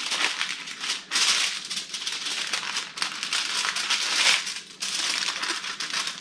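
Aluminium foil crinkling and rustling as hands fold its sides up in small folds, in a few spells with brief pauses between them.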